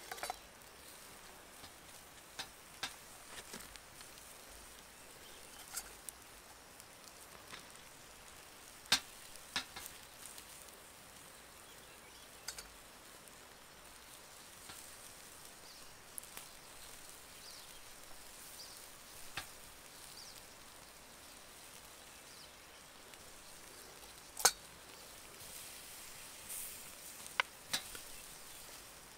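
Faint sizzling from campfire cooking, with irregular sharp pops and crackles. The loudest pops come about nine seconds in and about twenty-four seconds in.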